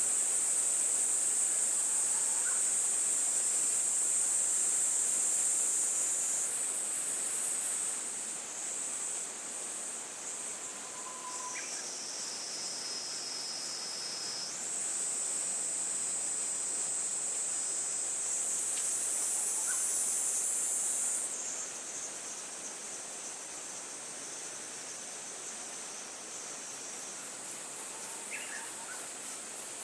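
Insects singing outdoors: a steady, high-pitched chorus of overlapping trills that shifts in pitch several times and grows softer about two-thirds of the way through, with a few faint bird chirps.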